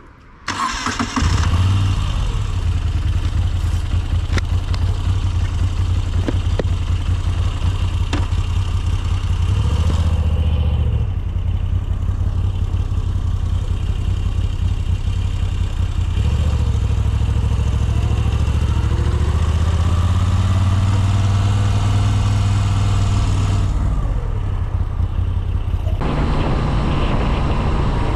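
Moto Guzzi V7 850 Spezial's air-cooled 850 cc transverse V-twin, on its original exhaust, starts up about a second in and then runs loud and steady. Its pitch shifts several times and rises in sweeps between about 16 and 24 seconds as the bike accelerates, heard from inside the rider's helmet.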